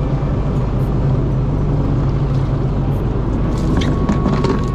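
Fishing boat's engine running with a steady low rumble. A few light knocks come near the end as a plastic bucket is picked up.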